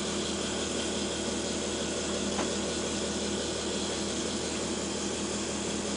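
Solar Saturn gas turbine running under test: a steady hiss over a low, even hum, with one faint click a little over two seconds in.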